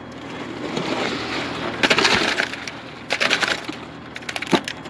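Fresh concrete being scraped and pushed down a wooden chute into a drilled pier hole: gritty scraping in two bursts, about two seconds in and again a second later, with a few sharp knocks near the end.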